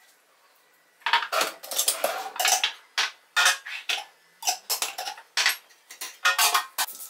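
Glass jars, metal tea tins and scissors being picked up and set down on a kitchen countertop: a quick, irregular run of clinks and knocks starting about a second in.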